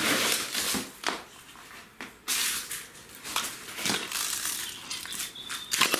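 Crunching, scraping and clinking of debris and litter, in an irregular run of sharp crunches.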